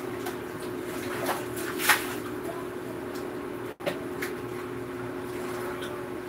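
Dishes and a steel basin knocking and clinking as they are handled at a kitchen sink: a few sharp knocks, the loudest about two seconds in, over a steady hum.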